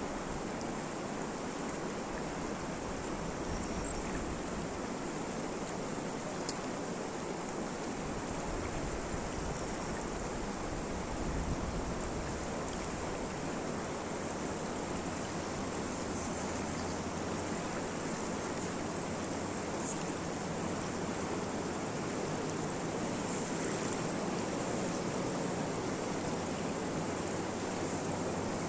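Steady rain, an even hiss with no change in level, with a few faint light ticks on top.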